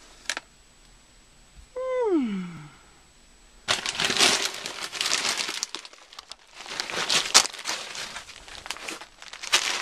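Plastic food packaging crinkling in repeated bursts as a hand rummages through bags in a pantry, from about four seconds in. Before that, a single click and a short tone that slides steeply down in pitch.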